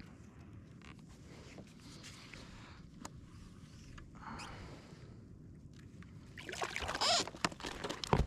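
Water lapping and sloshing against a kayak hull over a low, steady rush of wind and sea. It grows louder and more irregular, with knocks, in the last two seconds.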